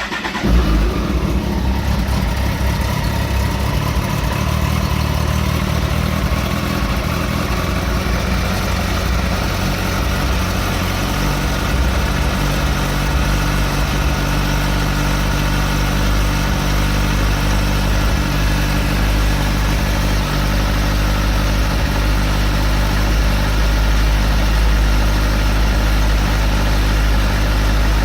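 Kawasaki ZX-14 motorcycle's inline-four engine starting cold, catching with a brief rev, then idling steadily. The owner hears a clatter from it when cold on the new bike.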